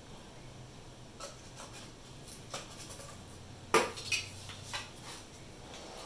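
A handful of light clinks and knocks as a tray of paint stripper and a brush are handled and set down, the loudest knock about two-thirds of the way through.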